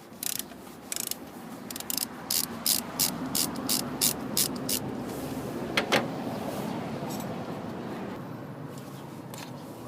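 Ratchet wrench clicking in a run of sharp clicks, about three a second, then a louder double click about six seconds in.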